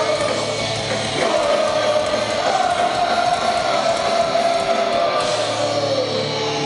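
Live hardcore punk band playing through a concert PA, loud and distorted: a sustained, wavering tone rides over held low bass notes, with voices singing along.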